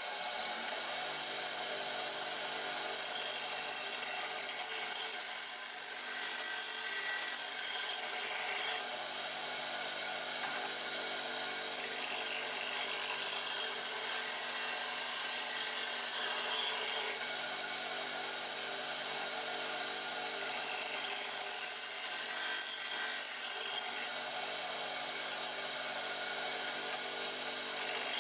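Bench grinder running steadily, its motor humming under a constant hiss as a woodturning gouge held in a sharpening jig is swung round against the wheel to sharpen the bevel.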